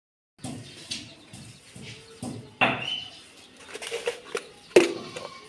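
Scattered light knocks and clinks, the loudest a sharp knock with a short ring near the end, with a short high chirp about halfway through.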